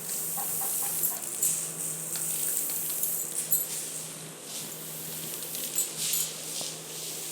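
Raw uncooked rice grains being chewed close to the microphone: irregular crisp crunches and clicks, over a steady low hum.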